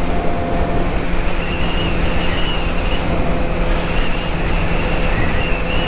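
Motorcycle ridden at steady motorway speed: a constant engine hum under heavy wind rush on the camera's microphone.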